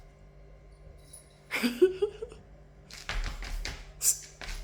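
A short rising vocal call about one and a half seconds in, then a run of rustles and light clicks.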